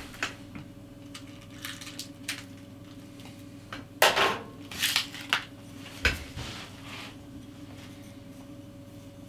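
Objects being handled on a desk off-camera: scattered light clicks and rustles, with a louder scraping rustle about four seconds in and a dull knock about six seconds in, over a steady faint electrical hum.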